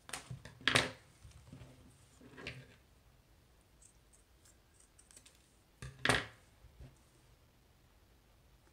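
A few short clicks and knocks of hand-held craft materials being picked up and set down on a tabletop, the sharpest just under a second in and about six seconds in.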